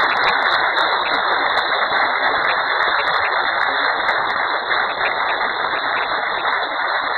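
Studio audience applauding steadily, a dense crackle of many hands clapping.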